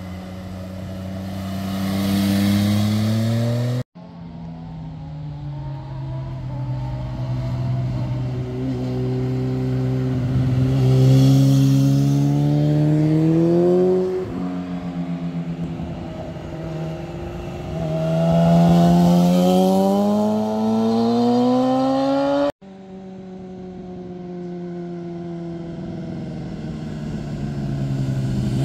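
Motorcycle engines accelerating through hairpin bends, one bike after another: each engine note climbs steadily as the throttle is opened, drops once in the middle and climbs again. The sound cuts off abruptly twice as one passing bike gives way to the next.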